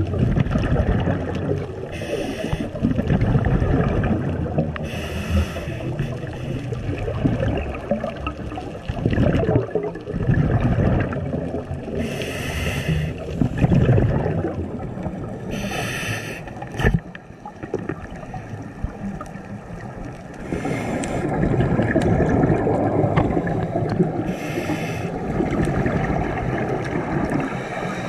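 Scuba diver breathing through a regulator underwater: a short hissing inhale every few seconds, each followed by the low rumbling gurgle of exhaled bubbles.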